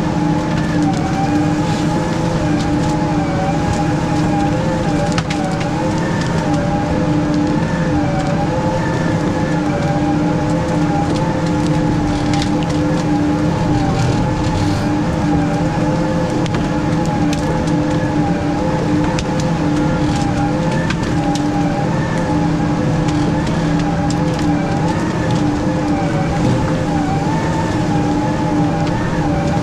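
Weiler S340 grapple skidder's diesel engine running steadily as the machine drives along dragging logs, a constant drone with a higher whine that wavers slightly in pitch above it. Scattered clicks and snaps come through over the engine.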